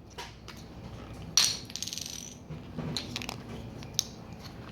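Small plastic game pieces clicking and clattering on a tabletop as they are handled. There is a sharper clatter about a second and a half in, followed by a quick run of small ticks, with scattered single clicks before and after.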